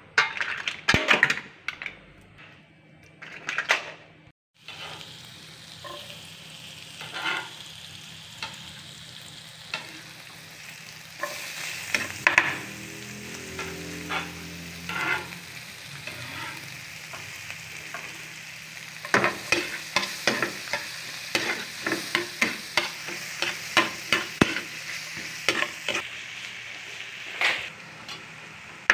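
Chopped garlic and onion sizzling in melting butter in a nonstick frying pan, a steady hiss broken by frequent sharp clicks and scrapes as the pan is stirred. In the first few seconds, before the sizzling begins, mussel shells clink against a metal colander as the meat is pulled out.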